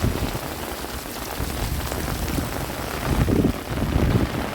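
Heavy rain falling steadily, with low rumbles rising about three seconds in.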